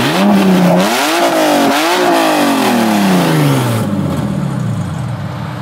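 BMW E30 M3 with a swapped-in E36 M3 inline-six, running with no exhaust fitted, loud. It is revved up in two steps, then the revs fall back to idle about four seconds in.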